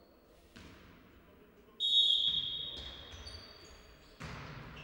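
Referee's whistle blowing once about two seconds in, a single steady shrill note that fades over about a second in the echoing sports hall. Near the end comes a sharp slap as a volleyball is struck on a jump serve.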